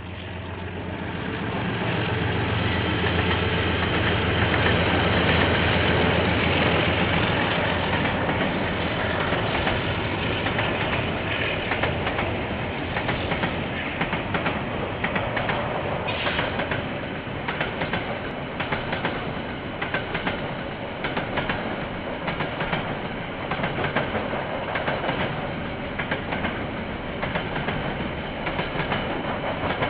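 Train passing at track side, heard through a security camera's microphone. It grows louder over the first couple of seconds with a low diesel-locomotive engine note, then the cars roll by with a steady rhythmic clickety-clack of wheels over the rail joints.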